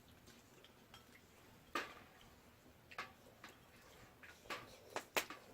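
Eating utensils clinking against bowls: a few scattered sharp clinks, the loudest pair close together near the end.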